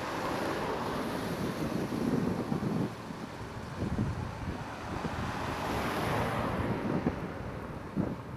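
Wind buffeting the microphone outdoors over a low, uneven rumble.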